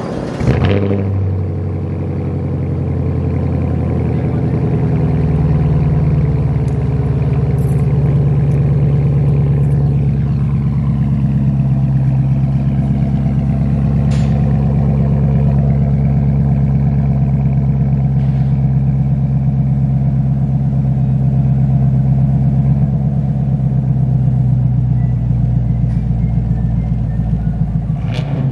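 2021 Chevrolet Camaro LT1's 6.2-litre V8 idling loudly and steadily through a muffler-deleted exhaust, with a deep, even note. A brief sharp knock sounds about half a second in.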